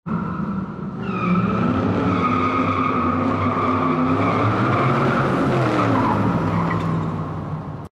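Sound effect of a car engine revving with tyres squealing, like a burnout. The squeal sets in about a second in, the engine note drops a little past the middle, and the sound fades slightly before cutting off at the end.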